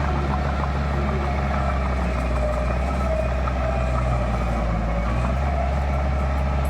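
Heavy diesel engine of construction machinery running steadily at a constant low hum.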